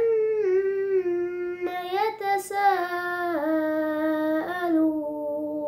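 A boy's voice reciting the Quran in melodic tajweed chant: one long unbroken phrase of sustained, ornamented notes that step down in pitch a few times.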